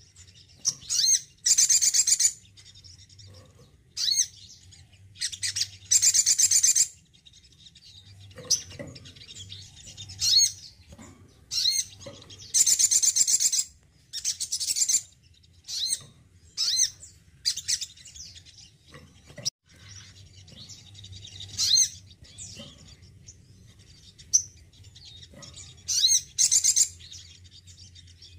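Male olive-backed sunbird singing: short, high-pitched bursts of rapidly repeated notes, coming every second or two with uneven pauses, over a faint low hum.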